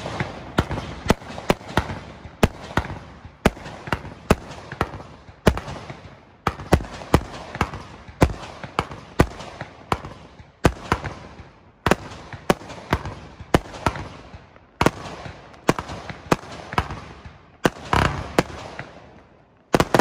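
Multi-shot fireworks barrage bursting in the air: a rapid string of sharp bangs, about two or three a second with a few short breaks, and crackle and hiss between them.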